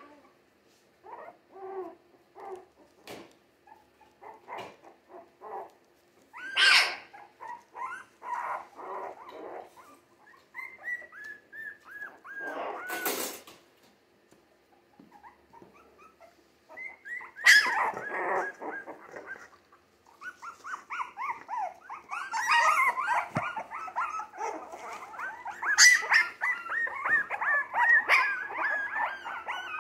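Three-week-old Jack Russell terrier mix puppies whimpering, whining and yipping: scattered short cries and falling whines with a few sharp yelps at first, then several puppies crying together without a break in the last third.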